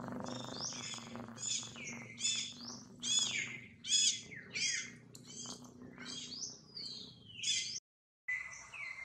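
Birds chirping, a quick string of short calls that sweep up and down in pitch, over a low steady hum in the first half. The sound cuts out for a moment near the end.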